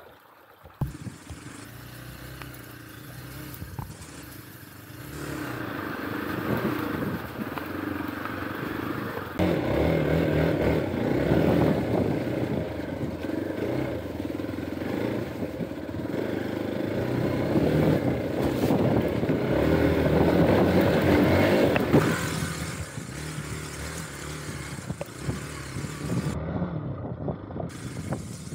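Hero Xpulse 200 4V's single-cylinder engine heard from on the bike while it is ridden along a rough dirt trail. It picks up about five seconds in, is loudest from about ten to twenty-two seconds, then eases off.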